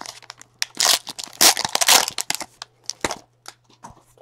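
Foil wrapper of a 2016 Panini Elite Extra Edition baseball card pack being torn open and crinkled. The loudest tearing comes about a second in and lasts about a second, followed by a few short clicks.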